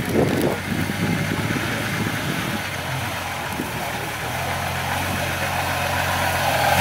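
Engine of a 4x4 off-road vehicle running steadily at low revs, a steady low drone that grows a little louder toward the end.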